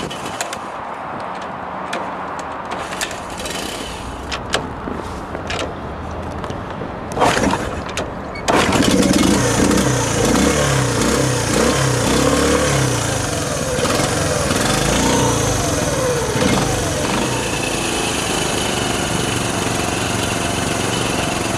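Honda C90's small single-cylinder four-stroke engine on a cold start: clicks and knocks as it is kicked over, then it catches about eight seconds in. It runs with its speed rising and falling for several seconds, then settles to a steady idle.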